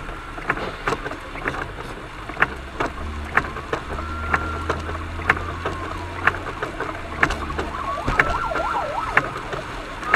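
Rain on a moving car's windscreen, heard from inside the car: scattered sharp ticks over steady road noise, with a low hum from about three to seven seconds in. A faint tone rises and falls twice.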